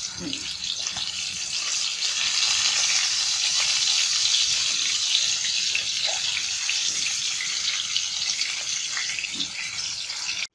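Climbing perch sizzling in hot oil in a frying pan: a steady, crackling hiss from the fish, fried through. It cuts off suddenly near the end.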